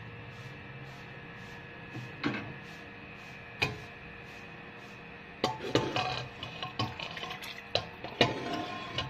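Metal ladle stirring soup in a steel pot. There are two single knocks in the first half, then from about halfway a run of clinks against the pot with the liquid sloshing.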